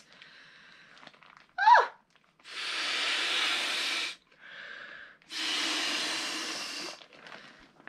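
Two long, forceful breaths blown into the valve of a Sea to Summit Aeros Premium inflatable pillow, each lasting a second and a half or more, with a quicker, softer breath between them as she draws air. A brief squeak comes just before the first breath.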